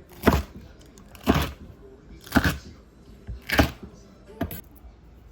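Five sharp knocks, about one a second, over faint background music.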